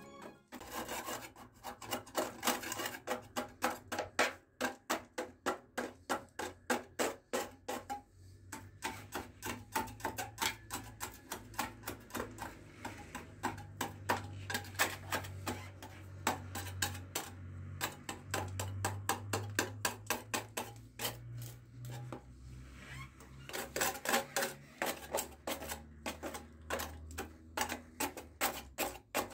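Hand tool chipping and scraping out old mortar around a terrace floor drain: runs of sharp taps, a few a second, with short pauses between them.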